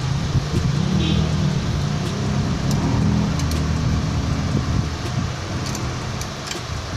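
A passing motor vehicle's engine rumbling, swelling about a second in and fading after the middle, with a few light clicks.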